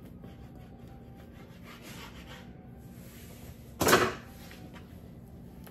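Knife cutting raw bacon on a plastic cutting board: a run of soft scraping strokes, followed about four seconds in by one short, loud burst of noise.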